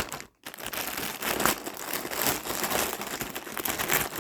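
Plastic packaging crinkling and rustling as it is handled and pulled open: a dense run of crackles that starts after a brief pause about half a second in.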